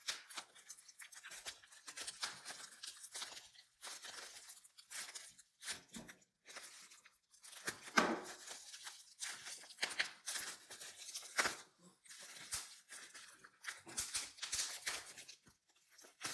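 Bubble wrap crinkling and rustling as it is pulled and torn open around a plastic-cased silver bar, in irregular short rustles with brief quiet gaps. The louder crackles come about eight and eleven seconds in.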